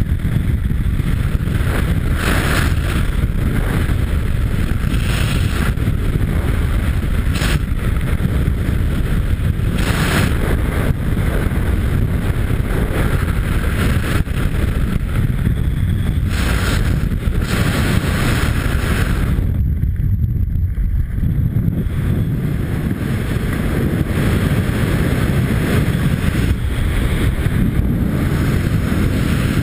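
Wind buffeting a skydiver's helmet-mounted camera microphone in flight: a loud, steady rush of air. The hiss dulls for a couple of seconds about two-thirds of the way through.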